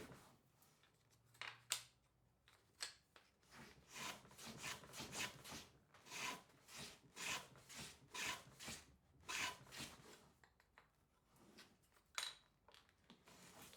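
A hand tool scraping or cutting wood in a series of short strokes. The strokes are sparse at first, then come about one or two a second through the middle, with a few sharp clicks.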